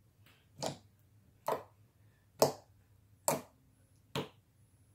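Fingers poking a jiggly day-old slime, making five loud, sharp pops about one a second.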